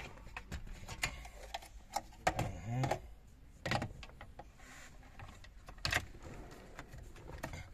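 Hard plastic dashboard trim pieces clicking and knocking against the Toyota Land Cruiser 200's dash frame as they are handled and test-fitted, in a string of sharp, irregular knocks; the loudest comes right at the start.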